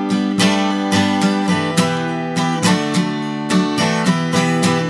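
Background song: strummed acoustic guitar in an instrumental stretch between sung lines, with a steady rhythm.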